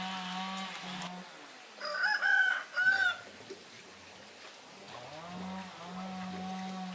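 A rooster crows once, about two seconds in, and this is the loudest sound. A lower, drawn-out sound comes at the start and again near the end.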